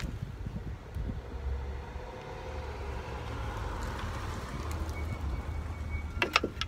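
Screwdriver prying between a brake pad and the rotor in a front brake caliper, giving a few sharp metallic clicks near the end, over a steady low rumble.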